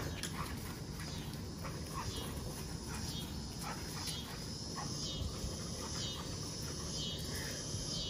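A puppy making occasional short, faint sounds as it runs about a grass yard, over a steady background of summer cicadas.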